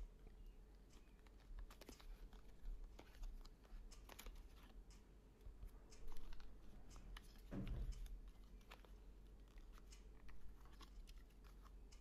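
Faint handling of a small cardboard product box as it is opened: scattered light clicks and crinkles of card, with one soft knock a little past halfway.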